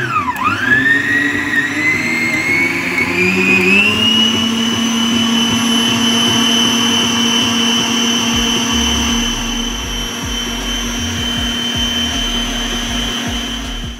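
Electric stand mixer with a wire whisk beating a batter of eggs, sour cream and flour. Its motor whine dips as it starts, climbs in pitch over about four seconds as it speeds up, holds steady, then stops.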